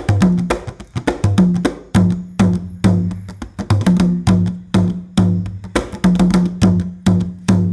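Giriama drums played in a fast, steady rhythm: sharp, crisp strikes over deeper pitched drum tones, several beats a second.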